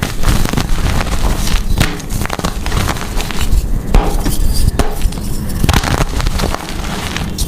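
Blocks of gym chalk being crushed and crumbled, a dense run of crunchy crackles and small snaps.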